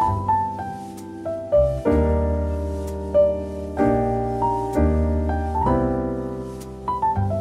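Background piano music: low chords struck every second or so under a melody of single notes.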